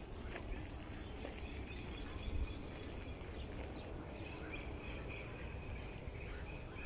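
Outdoor ambience: a steady low rumble and hiss with faint high chirping, and a longer faint chirring tone about two-thirds of the way in.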